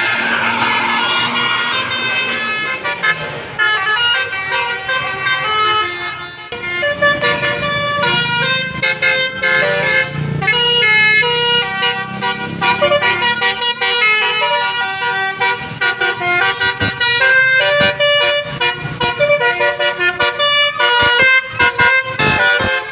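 Telolet musical air horn playing a long, fast-changing run of melodic notes, many of them short and choppy.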